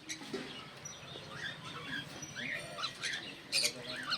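Small pet parrots chirping and chattering, with many short overlapping chirps and a louder, shrill call about three and a half seconds in.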